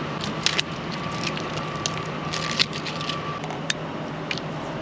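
Steady traffic noise from a nearby road, with a few irregular light clicks and ticks over it.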